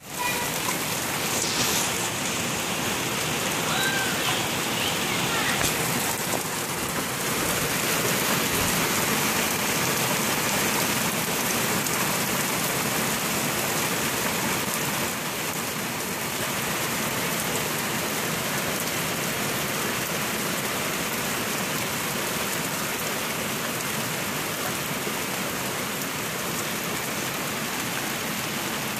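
Heavy downpour of rain: a steady, dense rush of rain falling on trees, ground and a wet deck, easing slightly about halfway through.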